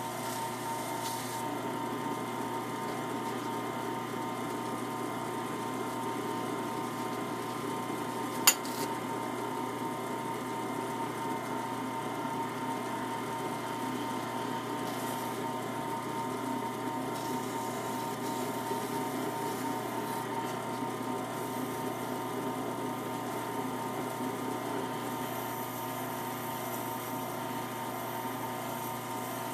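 Small woodturning lathe running steadily, its motor humming on several steady tones. One sharp click about eight seconds in.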